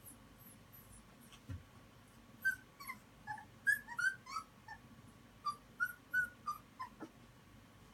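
Young puppies squeaking and yipping while they play: a quick run of short, high-pitched cries, thickest between about two and a half and seven seconds in.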